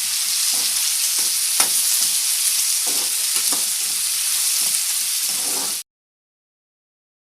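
Onions and tomatoes sizzling in hot oil in a kadai, with a spatula scraping and knocking against the pan as they are stirred. The sound cuts off suddenly about six seconds in, leaving silence.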